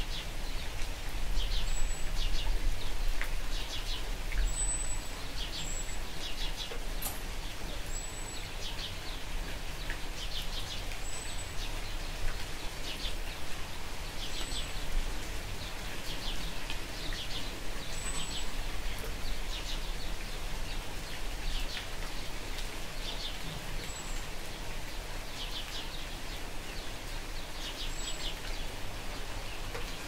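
Steady light rain, with birds chirping: quick clusters of chirps every second or two and a thin high peep repeating every couple of seconds.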